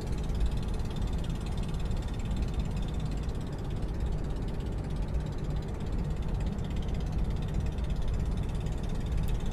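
Steady low rumble of a car being driven, engine and tyre noise heard from inside the cabin.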